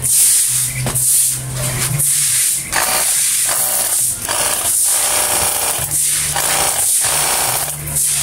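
Battery-powered pressure washer spraying water, its pump buzzing and the jet hissing. It starts and stops several times as the trigger is pulled and released.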